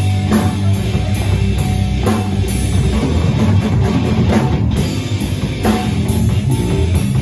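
Live band playing a rock song, with a steady beat of cymbal strokes about twice a second over a heavy low end.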